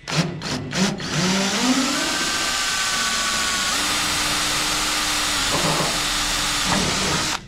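Cordless drill boring up through a race car's deck panel. A few short spins come in the first second, then about six seconds of steady drilling that stops abruptly.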